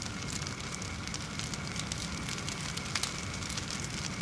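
Fire crackling: a steady hiss of flames with many sharp crackles and pops, one louder pop about three seconds in.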